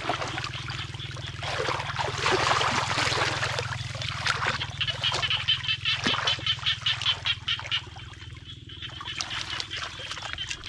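Muddy water splashing and sloshing as hands grope through a shallow rice-paddy channel. About halfway through, a rapid run of short animal calls, about four a second, lasts for roughly three seconds.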